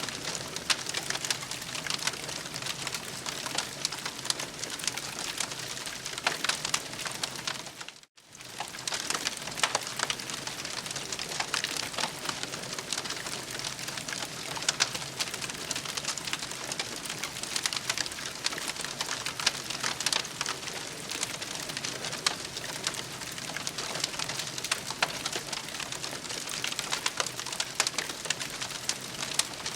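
Campfire crackling steadily, a dense run of sharp pops and snaps over a soft hiss, with a brief dropout about eight seconds in.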